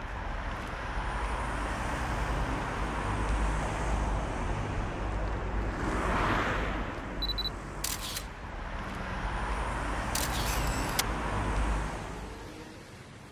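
Traffic ambience with a steady low rumble and a car swishing past about six seconds in. This is followed by camera sounds: a short high beep, a shutter click about eight seconds in, and the whir of an instant camera pushing out a print a little after ten seconds.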